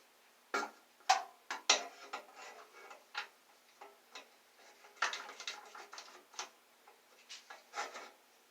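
Irregular knocks, clicks and light clatter of hard parts being handled and set in place on a drill-press table, to hold a workpiece so it won't slide. The sharpest knocks come about a second in, with busier clusters around the middle and near the end.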